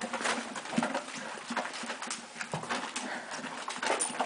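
Horse eating grain feed from a plastic bucket: irregular crunching and rustling as its muzzle works through the feed, with knocks as the bucket is pushed about.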